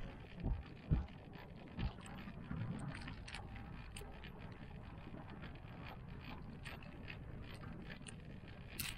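Steady rush of a moving gondola cabin on a cable car, with a few dull knocks in the first two seconds, faint clicks, and a short sharp rattle near the end.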